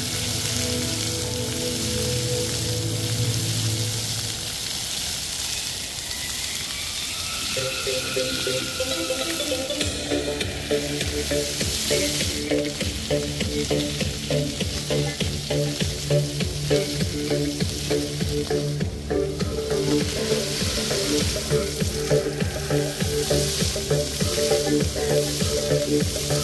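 Water jets of a musical light fountain hissing and splashing onto wet paving, with the show's music playing over them; about ten seconds in, the music picks up a steady pulsing beat.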